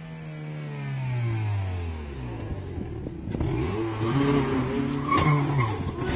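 A race car's engine revving hard. Its pitch falls away over the first two seconds, then climbs and drops again several times as the car slides, with a sharp knock about five seconds in.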